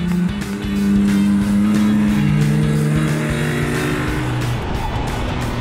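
Small kei sports cars, a Suzuki Cappuccino and a Honda Beat, driving along under load; their engine note steps down in pitch about two seconds in. Background music with a steady beat plays over it.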